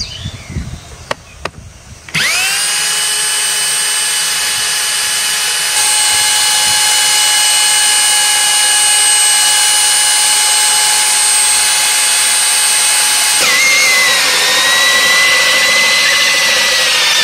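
A Bosch rotary hammer drill with a 3-inch hole saw starts about two seconds in and runs with a steady high whine as it cuts into a plywood board. About thirteen seconds in, its pitch drops and wavers as the saw bites into the wood.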